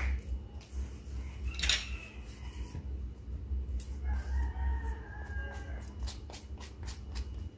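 A silicone spatula scrapes and taps inside a stainless steel mixing bowl, mixing eggs into creamed butter and sugar, with scattered sharp clicks. A drawn-out pitched call of about a second sounds in the background about four seconds in.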